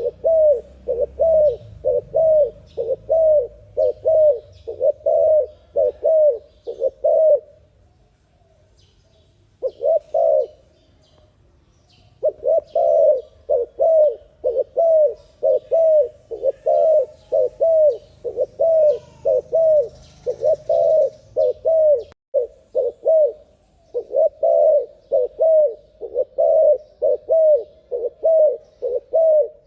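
A dove cooing in fast runs of short notes, about three a second, each note bending up and down in pitch. The run breaks off for a few seconds after about eight seconds, with one lone coo in the gap, and pauses briefly again around twenty-two seconds.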